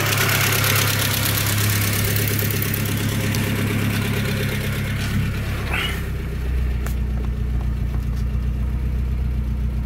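A 1987 Saab 900 SPG's 16-valve turbocharged four-cylinder engine running at idle on its first start after a full rebuild. About six seconds in, the idle drops to a lower, steadier pitch.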